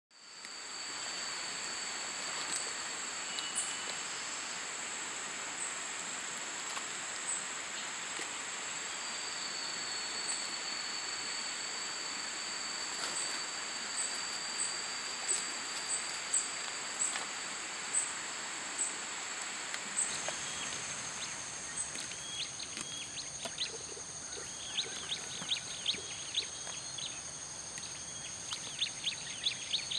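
Tropical rainforest ambience: a steady, high-pitched insect chorus with short calls repeating about once a second. About two-thirds of the way through the chorus changes and quick bursts of clicking, chirping calls join in.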